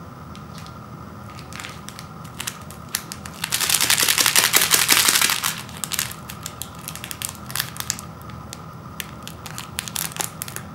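Foil seasoning packet crinkling in the fingers as it is handled and worked open at the corner, with a loud stretch of crinkling about four seconds in and scattered crackles after.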